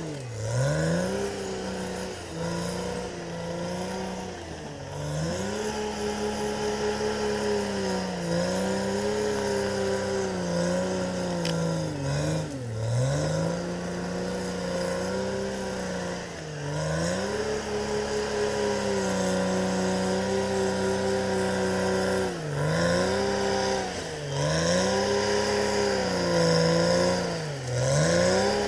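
Cat D6R XL crawler bulldozer's diesel engine running at high revs while the blade pushes earth and brush. Its pitch dips sharply and recovers about eight times, most often in the last few seconds.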